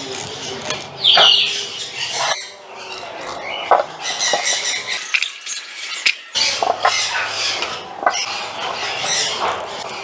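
A flock of pet parrots squawking and screeching, many short shrill calls overlapping, with one loud call about a second in.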